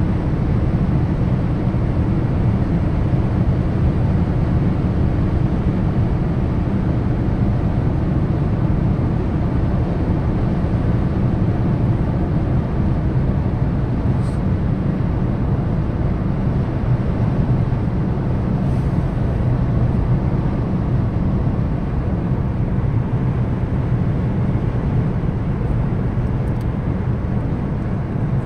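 Steady low road noise inside a car cruising at motorway speed: tyres on asphalt and wind, with the engine under it.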